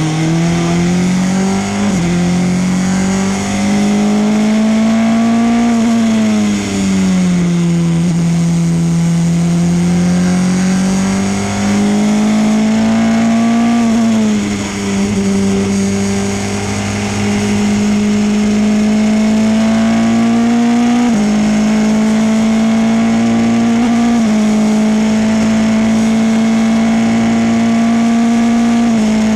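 Formula Renault 2.0 race car's four-cylinder engine at racing revs, heard from the cockpit: the note climbs under full throttle, eases off twice through corners, and steps quickly at the gear changes as the car pulls up through fourth, fifth and sixth.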